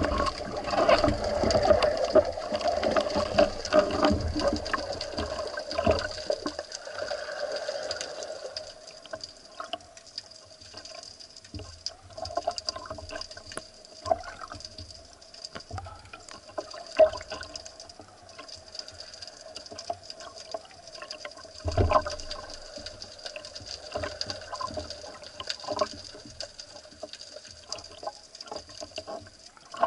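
Water heard through a diver's underwater camera as a spearfisher swims up from the bottom: dense bubbling and rushing for the first several seconds, then quieter sloshing at the surface with scattered small knocks and one louder thump about two-thirds of the way through. A faint steady high tone runs underneath.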